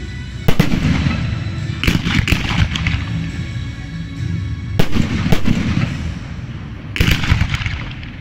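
Aerial fireworks shells bursting overhead: sharp bangs every second or two, some in quick pairs, each trailing off in a rumble.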